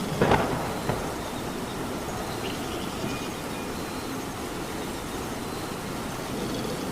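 Steady rain falling. A short, loud crack comes a fraction of a second in, followed by a smaller knock just under a second in.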